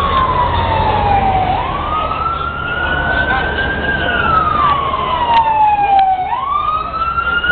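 An emergency vehicle siren wailing, its pitch sliding slowly down and back up in cycles of about five seconds. A second, fainter and higher siren joins in the second half, over street noise.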